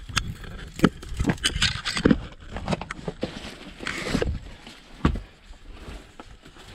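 Dry branches and leafy twigs rustling, with irregular twig cracks, knocks and scrapes, as someone pushes through brush at close range.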